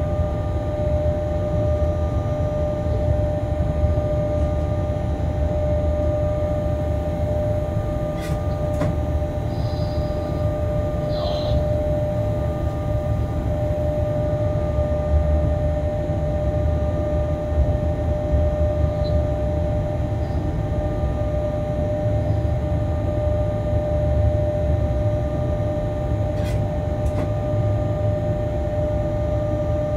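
A freight train's locomotive heard from inside the cab while running along the line: a steady low rumble with a constant whine over it. There are a couple of pairs of sharp clicks, one about eight seconds in and another near the end.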